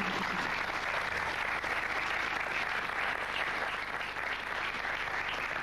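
Studio audience applauding, a steady even clapping.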